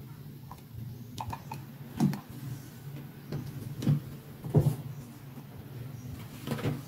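Small hard plastic toy handbag being handled, giving a few short plastic knocks and taps, the loudest about halfway through as it is set down on the table. A low steady hum runs underneath.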